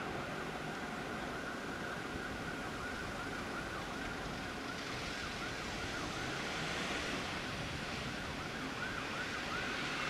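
An HST power car approaching at low speed, its diesel engine running steadily under a wavering high-pitched whine. A hissing noise swells about five seconds in and again near the end.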